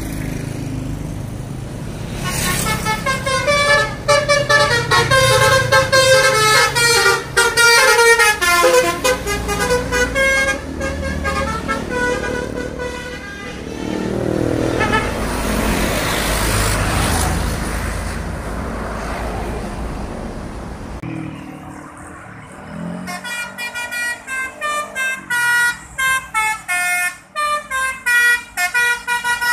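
Buses sounding multi-tone musical horns, playing quick runs of changing notes, with a bus engine passing by in between. A second stretch of horn notes comes as a fast repeated pattern.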